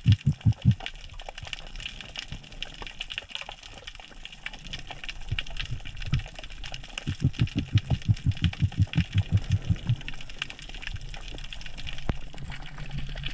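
A spearfisher's throat noises underwater, made to intrigue a school of mullet: a rapid run of low croaking pulses, about eight a second. One short run ends about a second in, and a longer one runs from about seven to ten seconds. Faint underwater crackling of clicks throughout.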